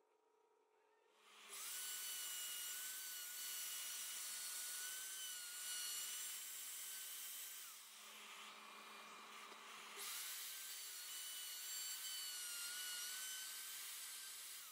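Small handheld router whining at high speed as its bit cuts a pickup cavity into a wooden guitar body, guided by a routing template. The whine starts about a second in, with its pitch wavering slightly under load. It eases off around eight seconds in and picks up again two seconds later.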